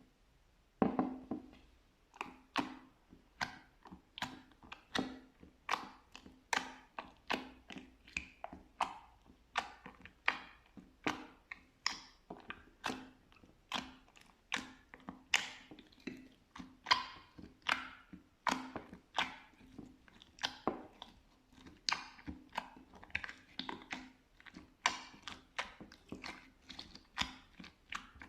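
Slime being pressed and squished by hand, giving a rapid, irregular train of sharp crackling pops and clicks, roughly one or two a second.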